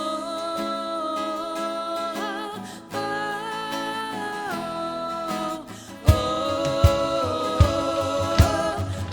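Worship band music: long held sung notes over guitar, with a drum beat coming in about six seconds in.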